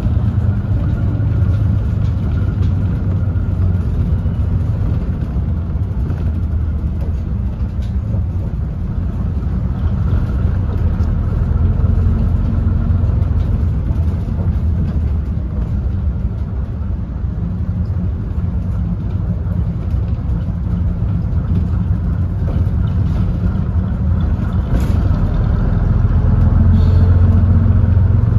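Bristol RE bus's rear-mounted Leyland diesel engine running as the bus drives along, heard from inside the saloon: a steady low rumble that grows louder near the end.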